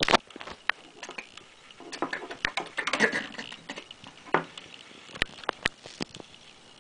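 Handling noise: irregular sharp taps and clicks as a plush toy and a kitchen knife are knocked about on a wooden surface, with a stretch of rustling about two to three seconds in.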